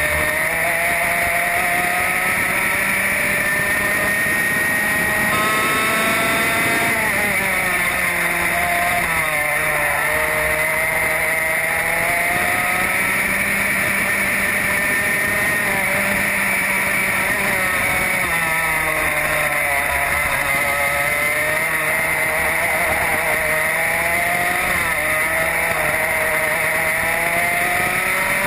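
Racing kart's engine heard close up from on board, running hard through a lap. Its pitch climbs slowly on the throttle and drops sharply several times as the driver lifts off, then climbs again.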